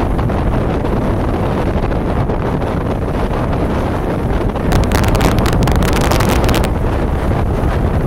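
Heavy wind rumbling on the microphone over waves breaking against a rocky pier base. About five seconds in there is a louder crackling hiss of about two seconds.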